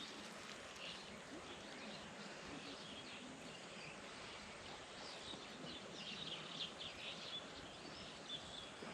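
Faint outdoor ambience with small birds chirping, the chirps clustering in the second half.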